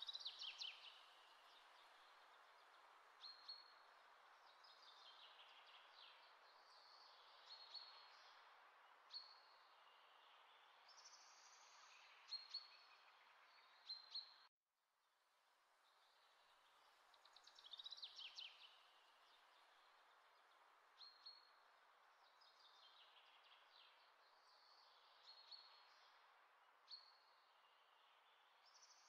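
Very faint birdsong ambience: short bird chirps and calls over a steady hiss. It is a looped track that drops out briefly about halfway through and starts over.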